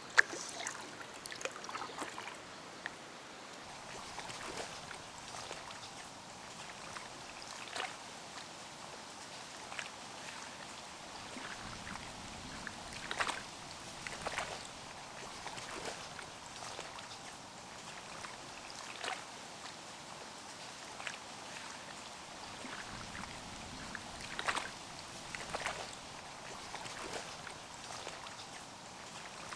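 Packraft paddle dipping into a slow river: irregular splashes and drips over a soft trickle of flowing water, with one sharp knock at the very start.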